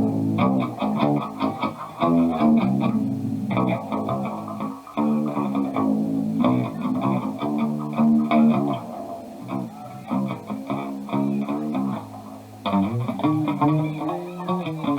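Guitar music with a bass line, playing in phrases of pitched notes that change every second or two.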